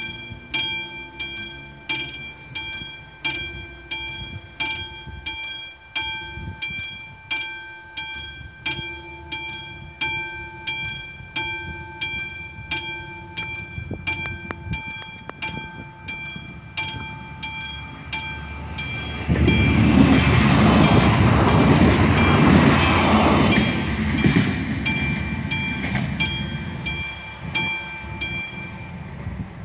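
Level-crossing warning bell of an AŽD 71 crossing signal ringing in even strokes, about one and a half a second. About two-thirds of the way in, a passenger train passes over the crossing, louder than the bell for several seconds before fading; the bell stops near the end.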